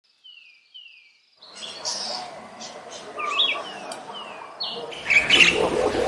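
Birds singing: two short falling whistles open it, then a busy chorus of several birds chirping and calling over a steady background hiss, growing louder about five seconds in.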